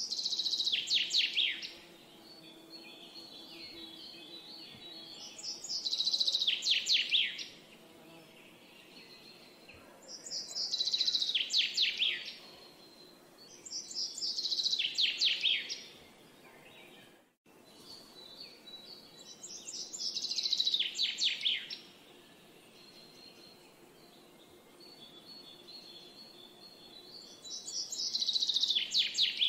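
A songbird singing the same short phrase over and over, six times, each a quick run of notes falling in pitch, coming every four to eight seconds. A faint, thin, high steady tone runs between the phrases, and there is one very brief dropout a little past halfway.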